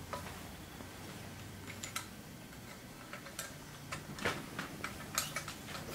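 Scattered light metallic clicks and taps as a tool and small parts are worked inside the open arm of a Bernina 217 sewing machine while a washer is pulled out, over a low steady hum.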